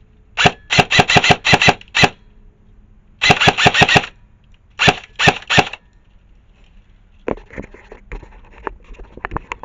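Airsoft electric rifle firing in quick strings of shots, about five a second: a burst of about eight, then one of about six, then three more, followed by fainter scattered cracks.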